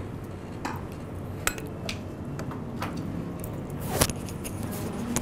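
A few sharp clicks and light knocks of small objects being handled at a lectern, the loudest about four seconds in, over a low steady hum.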